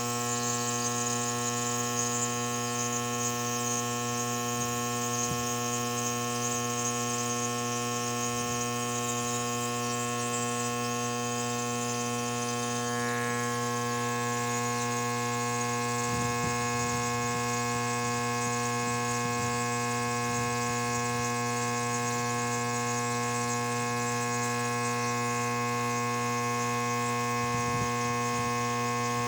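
Nebulizer air compressor running: a steady electric buzzing hum with a hiss of air over it.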